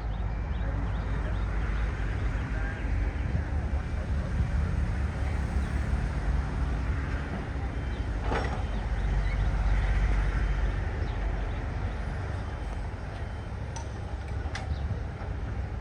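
Diesel engine of heavy earthmoving machinery running steadily with a low rumble, swelling a little past the middle; a single sharp knock about halfway through.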